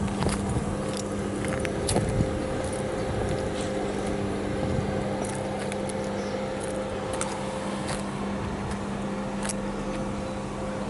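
MÁV class V43 (431) electric locomotive humming steadily with several even tones, with scattered light clicks and a brief knock about two seconds in.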